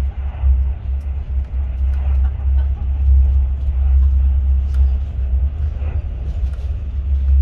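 Steady low rumble of a Class 43 HST train on the move, heard from inside the train: the running noise of the wheels on the rails and the body of the train.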